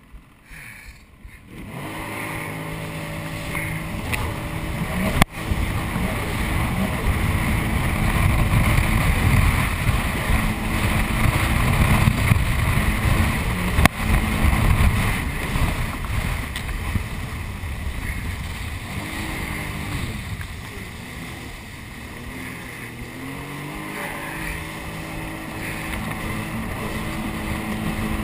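Jet ski engine picks up about two seconds in and runs at speed over the water, with rushing water and wind on the microphone. There are two sharp knocks, about five and fourteen seconds in, and the engine pitch rises and falls a few times later on.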